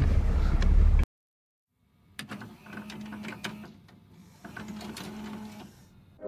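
Low rumble of a car cabin in a drive-thru line that cuts off abruptly about a second in. After a second of silence come faint scattered ticks over a low steady hum.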